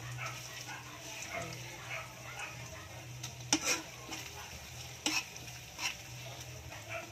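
A spoon stirring and scraping shrimp paste with pork frying in oil in a pan, with a low sizzle, a few sharp knocks of the spoon against the pan around the middle and near the end, and a steady low hum underneath.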